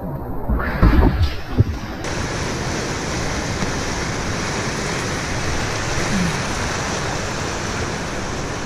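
Whitewater rapid rushing around a kayak, heard up close from the boat. The first two seconds are muffled splashing with a few low thumps as the camera comes up out of the water, then the steady rush of the rapid.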